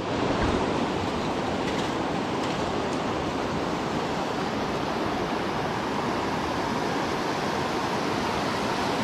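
A river's water rushing steadily at an even level.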